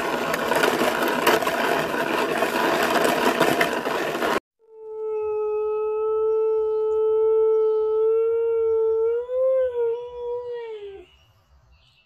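About four seconds of loud, even hissing noise that cuts off suddenly. Then a husky gives one long howl, held at a steady pitch, which rises slightly near the end and then drops away.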